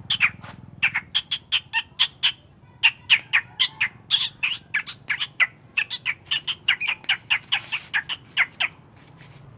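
A man making rapid kissing chirps with pursed lips to call a caged songbird, about three short squeaks a second, stopping near the end.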